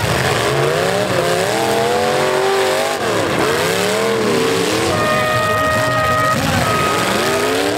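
Several demolition derby trucks' engines revving, their pitch rising and falling as they push and spin their wheels. In the second half a steady horn note sounds, with a short break.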